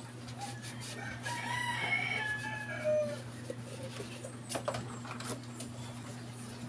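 A rooster crows once, a single drawn-out crow starting about a second in and lasting about two seconds, over a steady low hum. A few light clinks of plastic containers and dishes come near the end.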